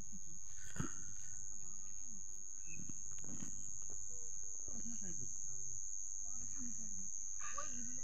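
Insects trilling in one steady high-pitched note that does not waver, with faint voices underneath and a single knock about a second in.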